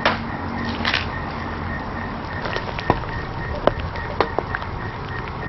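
Wood fire in a fire pit crackling, with scattered sharp pops over a steady hiss.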